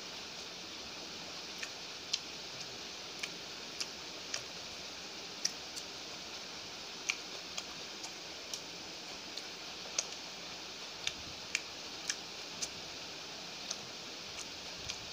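A person chewing a mouthful of chicken curry and paratha eaten by hand: sharp, irregular mouth clicks and lip smacks, one or two a second, over a steady background hiss.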